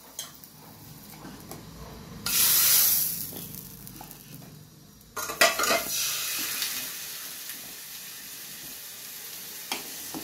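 Hot coconut-oil tempering of mustard seeds and curry leaves sizzles in the dal in a steel pressure cooker pot, a loud hiss about two seconds in that lasts about a second. From about five seconds in, a ladle stirs and clacks in the steel pot over a steady simmering hiss.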